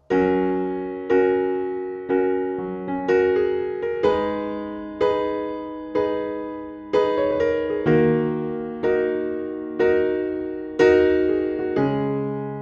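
Background music: soft piano or electric piano chords struck about once a second, each ringing and fading before the next.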